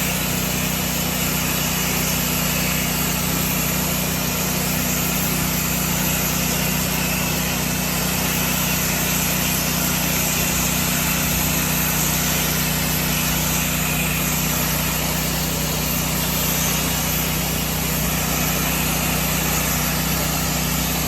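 Gas-engine pressure washer running steadily at one constant pitch, with the hiss of high-pressure water spraying.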